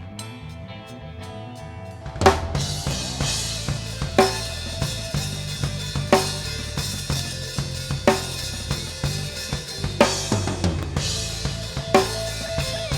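Live band playing a song's instrumental intro: guitar notes alone at first, then the drum kit comes in about two seconds in with a loud crash and keeps a steady beat of bass drum, snare and cymbals under bass and guitar, with a strong accent about every two seconds.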